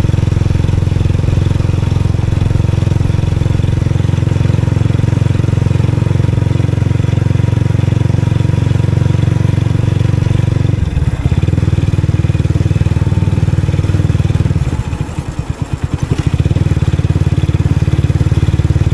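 Motorcycle engine running steadily under way. It eases off briefly around the middle and again for about a second and a half later on, the firing slowing, before picking back up.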